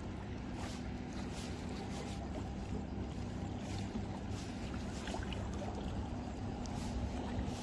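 Engine of an approaching boat running, a steady low drone with a faint hum.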